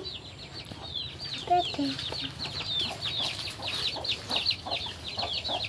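Chicks peeping: a steady stream of short, high, falling chirps, several a second, with a brief faint voice about one and a half seconds in.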